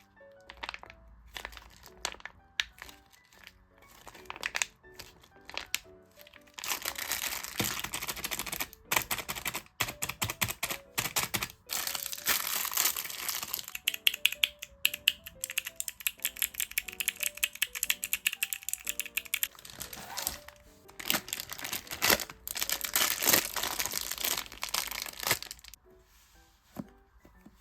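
Packaging being crinkled and torn open by hand in dense crackling bursts that start about six seconds in, pause briefly, then carry on until near the end. Soft background music plays throughout.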